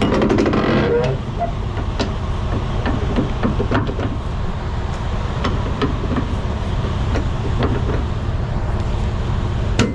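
Flatbed trailer strap winch being tightened with a winch bar: a series of sharp, irregularly spaced metallic clicks from the ratchet, over a steady low rumble.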